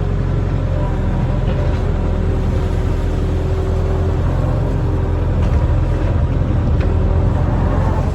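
Barge-mounted excavator's diesel engine running steadily under work, a low, even hum with a few faint knocks.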